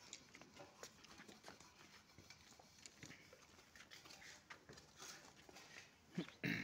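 Faint scattered clicks and scuffs of a goat's hooves on brick paving as it is pulled about, with a short, louder cry just before the end.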